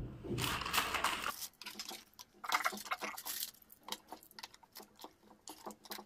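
Irregular hard-plastic clicks, knocks and scrapes as swivel caster wheels are pressed into the plastic base of a wet-and-dry vacuum cleaner.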